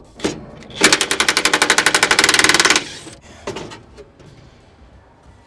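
Impact wrench hammering in a rapid rattle for about two seconds, running a fastener off, with a few separate clanks of tools or parts around it.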